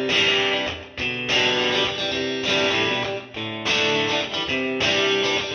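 Background music: guitar chords, changing every second or so.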